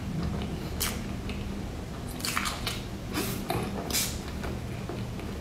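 Close-miked biting and chewing of a coated bread bun, with several sharp, crisp crackles from about a second in to four seconds in.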